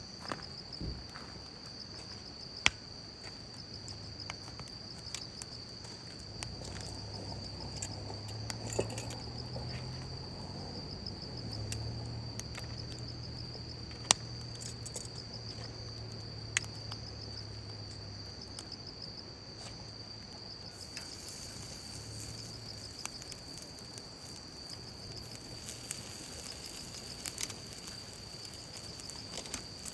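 Insects chirping in a steady, high, rapidly pulsing chorus, with a few sharp isolated clicks and a faint low hum through the middle.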